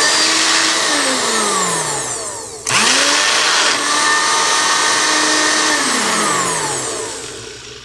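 Magic Bullet Express blender motor and cross blade spinning freely in an empty cup, run twice: each time it whirs at speed, then winds down with a falling whine as the press is released. The second run starts about two and a half seconds in.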